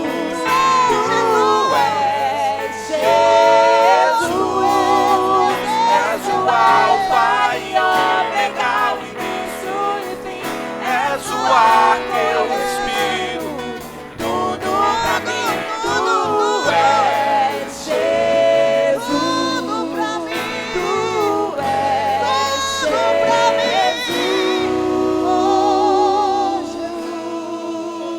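Live gospel worship music: several voices singing with vibrato over instrumental backing.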